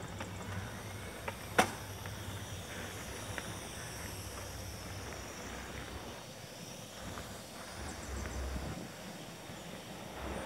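Mountain bike rolling along a paved path: steady tyre and riding noise, with a few sharp clicks and rattles from the bike in the first two seconds, the loudest about a second and a half in. A brief low rumble of wind on the microphone comes near the end.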